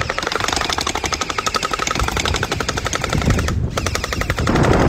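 Electric splat gun (gel ball blaster) firing on full auto: a fast, even rattle of shots with a steady whine under it. It stops for a moment about three and a half seconds in, then fires again.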